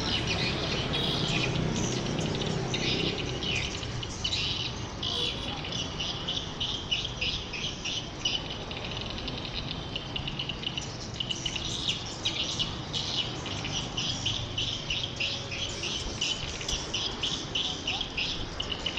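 Swiftlets twittering: a dense stream of short, high-pitched chirps in rapid runs, thinning for a few seconds midway and then growing busier again.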